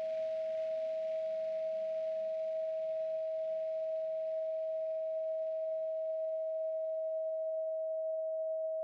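A steady pure tone at 639 Hz, one unchanging pitch held throughout. A faint hissy wash and low hum underneath fade away about eight seconds in.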